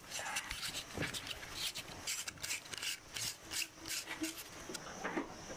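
Plastic threads of an LED bulb scraping and rubbing as it is screwed into a black plastic lamp socket, a quick run of short, irregular scrapes.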